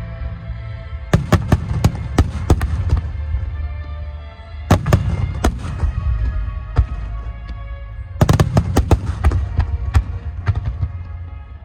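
Fireworks bursting in quick volleys of sharp bangs over a continuous low rumble of booms. The volleys come about a second in, around five seconds and again around eight to nine seconds. Music plays throughout, underneath the fireworks.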